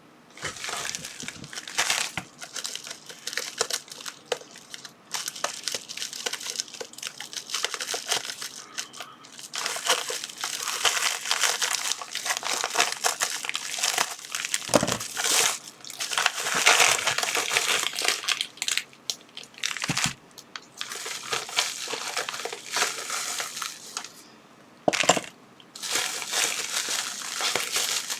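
Plastic packaging crinkling and crackling in irregular bursts with short pauses as it is handled and opened.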